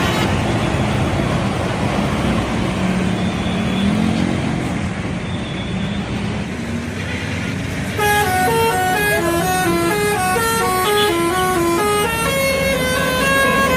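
Bus engine and road noise, then about eight seconds in a bus telolet horn, a set of tuned air horns, plays a fast stepping multi-note tune that runs on to the end.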